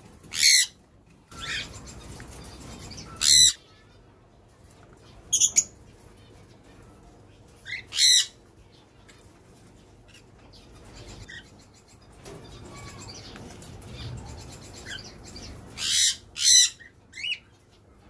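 Small pet parrots, cockatiels and lovebirds, give short, loud, shrill calls every few seconds, with three in quick succession near the end.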